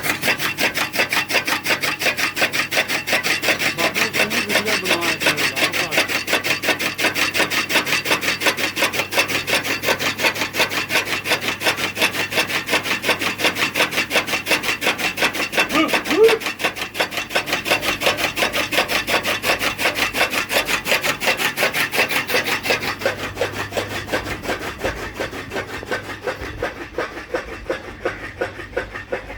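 Fodder for livestock being cut, a quick, even rhythm of rasping strokes that goes on steadily and grows a little quieter in the last few seconds.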